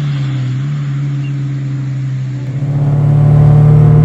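Scion FR-S's 2.0-litre flat-four engine running under way, a steady note that gets clearly louder about two and a half seconds in.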